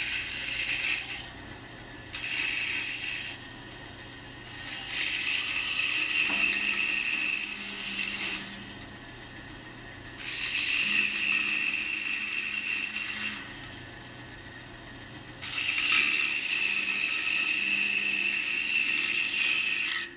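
Pegas saw blade cutting a small hardwood block in five separate cuts of one to four seconds each, the longer cuts near the middle and end. A steady low hum carries on between the cuts.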